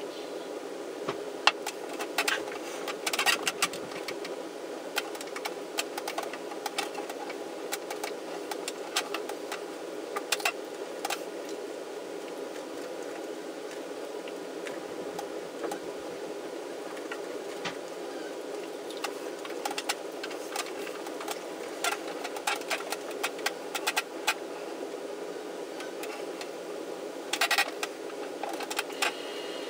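Steady low hum with scattered clicks, small knocks and mouth sounds, from grapes being eaten and a glass of milk handled on a wooden table.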